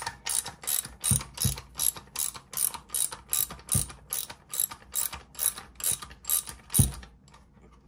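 Hand ratchet with a socket clicking in a steady rhythm of about three clicks a second as it backs off the stock-bolt nut; a few strokes land with a heavier knock, and the clicking stops near the end.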